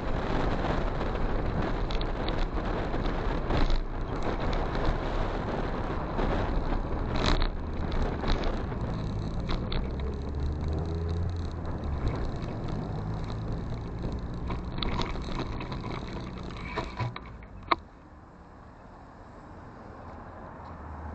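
Motorcycle on the move: heavy wind rush on the microphone over the engine, whose tone climbs and falls around the middle. Near the end a sharp click, after which the wind noise drops away and only a low engine hum remains as the bike slows.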